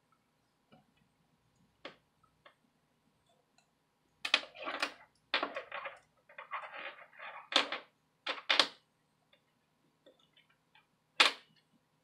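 Irregular sharp clicks, taps and short scrapes of hands working a disassembled smartphone's plastic housing and circuit board with a small precision screwdriver. They are clustered in the middle, with one sharp click near the end, over a faint steady hum.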